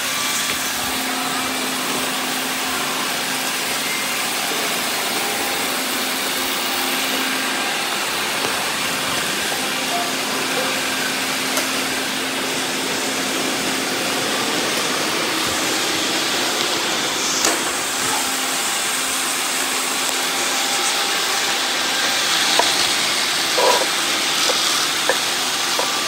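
Several robot vacuums running together on a tiled floor, a steady whirring of suction motors and brushes with a low hum underneath. A few light knocks come in the second half.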